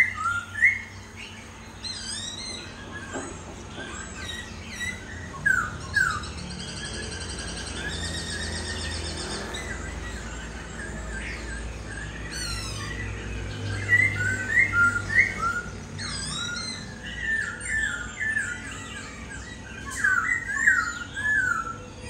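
Caged laughingthrush singing in bursts of short, loud whistled notes that bend up and down, with pauses between the phrases. A fast high trill comes in partway through, over a steady low hum.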